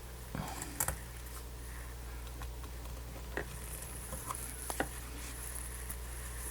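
Light handling noises of gloved fingers placing and pressing a strip of adhesive tape onto a tablet's screen edge: scattered soft clicks and ticks over a steady low hum.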